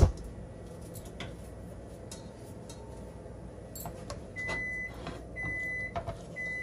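An electronic appliance beeper sounding a steady high beep about half a second long, once a second, starting about four seconds in, over a low steady hum. A sharp knock comes right at the start, and there are light taps of a silicone spatula against a nonstick frying pan as it pushes melting butter around.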